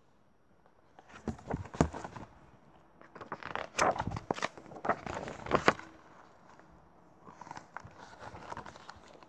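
Rustling and clicking of a picture book's paper pages being handled and turned, in three irregular bursts after a brief quiet start.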